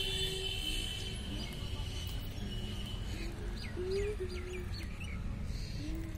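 Small birds chirping: a thin high note through the first half, then a quick run of about six short, falling chirps a little past the middle, over a steady low rumble.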